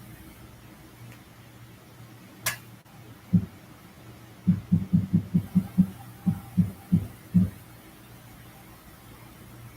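Dull knocking on a window: a sharp click, a single thud, then a quick run of about a dozen low knocks over three seconds, over a steady low hum.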